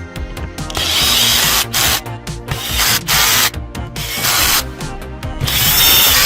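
Four short bursts of a mechanical whirring, ratchet-like sound, each about half a second to a second long, over steady background music.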